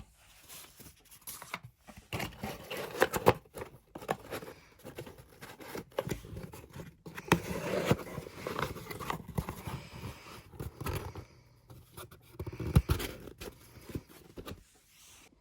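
Album contents (photobook, photocards and cardboard packaging) being packed back into their boxes by hand: paper and card rustling and scraping, with many small clicks and taps.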